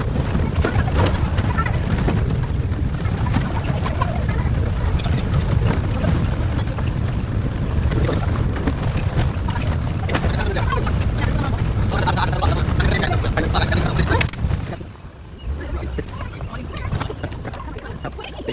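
Safari jeep driving, a loud steady rumble of engine and road noise that falls away about fourteen seconds in.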